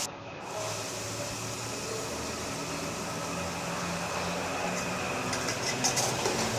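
Chicken and potatoes frying in spiced masala in a metal handi: a steady sizzle, with a few spatula scrapes against the pot near the end.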